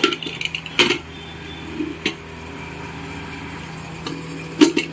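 Metal cookware clanking as a pressure cooker lid is handled and locked shut: four sharp knocks, the loudest near the end, over a steady low hum.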